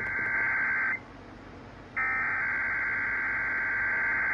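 Emergency Alert System SAME header data bursts heard over AM radio: a steady digital two-tone warble ends about a second in, and after a one-second pause a second burst starts and runs for about two and a half seconds. These bursts encode the alert's event type, area codes and timing ahead of the spoken Child Abduction Emergency message.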